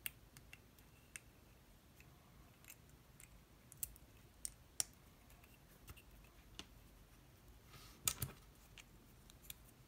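Faint, scattered clicks and ticks of a small metal mini-DIN connector plug and its shell being handled and fitted together in the fingers, with a louder double click about eight seconds in.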